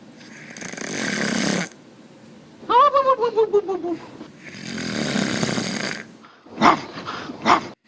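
Loud snoring: two long rasping in-breaths, a high whistling tone that falls in pitch and stutters on the out-breath between them, and two short snorts near the end.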